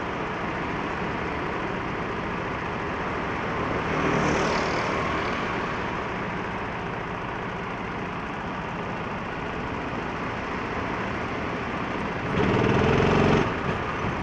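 Go-kart engines running steadily, briefly louder about four seconds in and again for about a second near the end.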